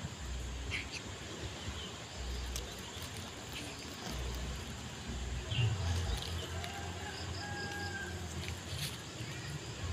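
Dry leaves crackling in scattered small clicks as a cat rolls and paws at a twig on leaf litter, over a low rumble that comes and goes.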